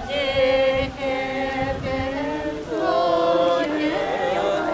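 A group of voices chanting together in long held notes that slide from one pitch to the next.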